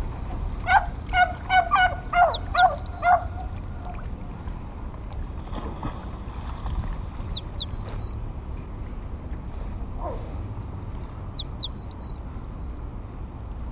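A songbird singing the same short phrase three times, about four seconds apart: a quick run of high whistled notes that slur downward, the first phrase with lower notes beneath it.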